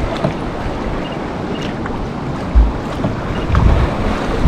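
Wind blowing across the microphone over the wash of choppy sea water around a kayak. A heavier gust hits the microphone about two and a half seconds in, and more buffeting comes near the end.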